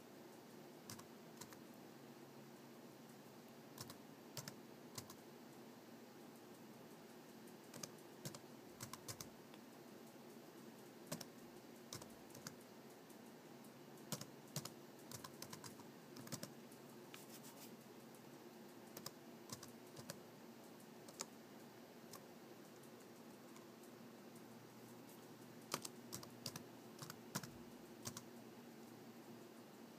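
Computer keyboard keys tapped one at a time, slowly and irregularly, in scattered single taps and short clusters, as a long command is typed with one hand. A faint steady low hum runs underneath.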